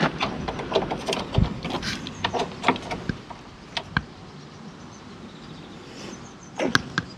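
Socket ratchet undoing a bolt, its pawl clicking in quick irregular runs with each back-swing, busiest in the first few seconds and with a few more clicks near the end.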